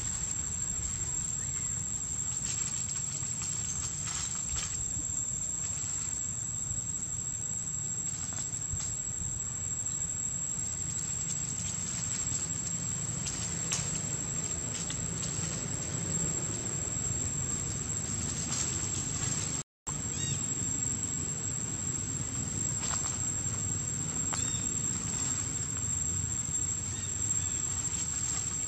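Outdoor ambience: a steady, high-pitched insect trill over a low rumble, with faint scattered ticks and rustles. The sound cuts out for a moment about two-thirds of the way through.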